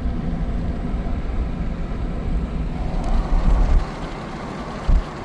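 Steady low rumble of road and engine noise heard inside a moving RV's cab, with a few short low thumps toward the end.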